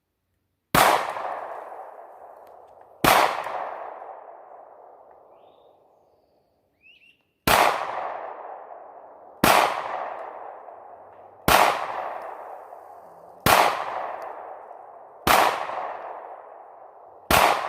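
Eight handgun shots, each a sharp crack followed by a long echoing decay. The first two come about two seconds apart, then after a four-second gap six more follow at about one every two seconds.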